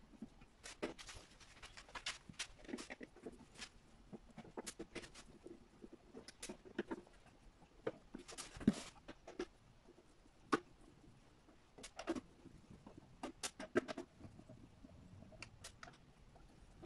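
Screwdriver work on a battery's casing, sped up four times: scattered sharp clicks and taps as the screws are turned out and set down on the case.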